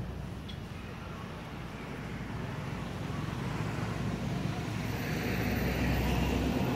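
A motor vehicle going by: a steady low rumble that grows louder, loudest near the end.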